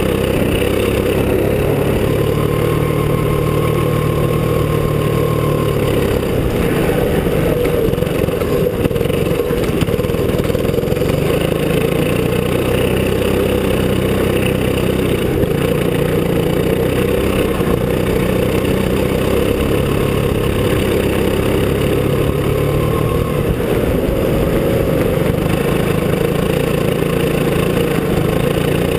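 Go-kart engine running at a fairly steady pitch as the kart drives on snow, heard close up from a camera mounted on the kart.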